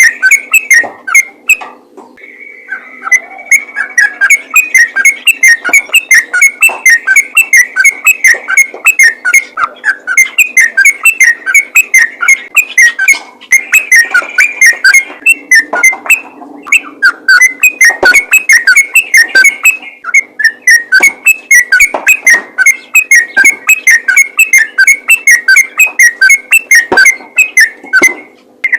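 Yellow-vented bulbul singing a fast, unbroken run of short, loud bubbly notes, several a second, with brief pauses about 2 s in and past the middle.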